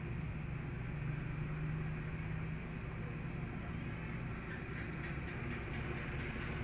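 Steady low hum with a constant hiss of background noise and no distinct events.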